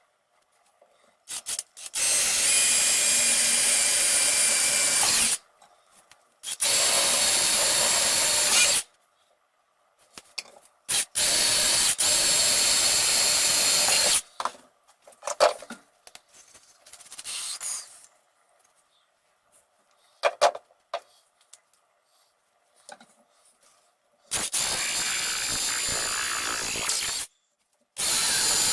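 Power tool working oak handle stock in five runs of about two to three seconds each, separated by light knocks and handling noises.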